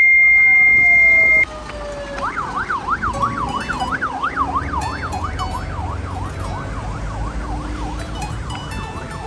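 An emergency vehicle siren in a fast yelping pattern, its pitch sweeping up and down about twice a second and slowly growing fainter, over the rumble of street traffic. It opens with a loud steady high tone that cuts off after about a second and a half.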